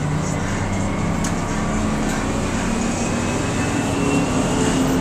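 Crown school bus engine running under way, heard from the driver's seat in the cab: a steady drone whose pitch creeps up slightly through the middle, as the bus pulls in gear. A faint click sounds about a second in.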